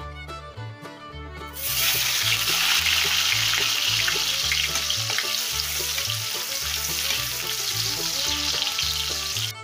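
Hotdogs sizzling in hot oil in a wok, the sizzle starting loud about one and a half seconds in as they go into the oil, then steady while they are turned with a spatula.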